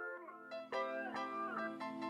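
Background music: plucked string notes that bend down in pitch, over a steady drone that comes in at the start.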